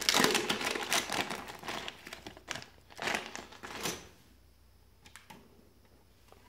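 A clear plastic zip bag crinkling as it is handled, for about four seconds. Then near quiet with a couple of faint clicks.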